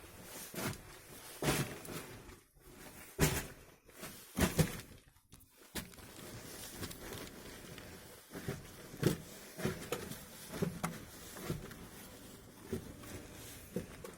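Footsteps of someone walking through a small room, with a few louder knocks in the first five seconds, then softer steps roughly every half second to second.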